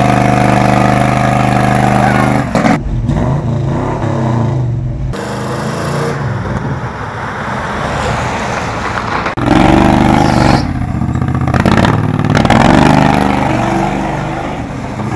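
Vehicle engines running in a string of short clips that cut abruptly every few seconds; the first is a small engine on a go-kart frame running steadily.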